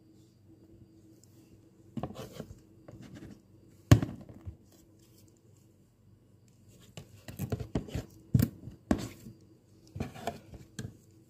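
Plastic reagent bottles being handled and set down inside a cardboard kit box: a run of knocks and scrapes, with the sharpest knock about four seconds in.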